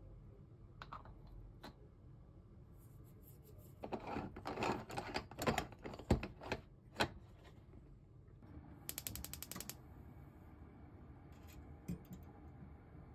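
Aluminium Bialetti moka pot being screwed together, its metal threads scraping and clicking in a cluster of sharp sounds. A few seconds later a gas stove's igniter ticks rapidly for about a second, and the burner comes on with a low, steady hiss.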